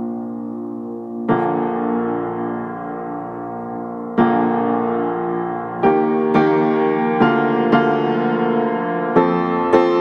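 Background piano music: sustained piano chords, a new one struck every few seconds at first, then notes struck about twice a second from about six seconds in.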